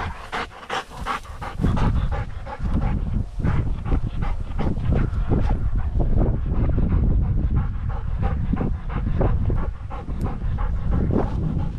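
A hunting dog panting in quick, repeated breaths, with wind rumbling on the microphone.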